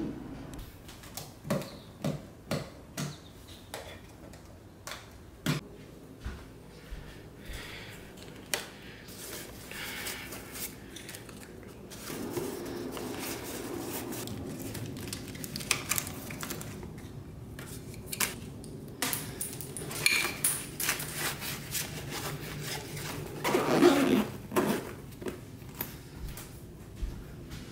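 Camera gear being handled and packed into a padded camera shoulder bag: small clicks and clatter of the camera, lens and filters, with rustling of the bag's fabric and a louder rustling burst near the end as the bag is closed. Earlier, a few separate knocks.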